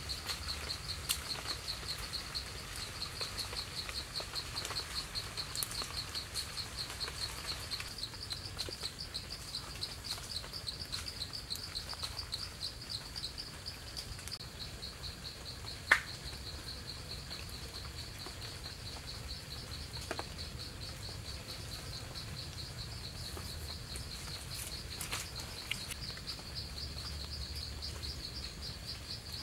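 Insect chirping in a steady trill of rapid, even pulses, with a single sharp click about halfway through.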